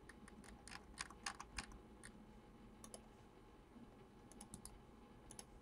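Faint typing on a computer keyboard: a quick run of keystrokes in the first two seconds, then a few scattered key clicks.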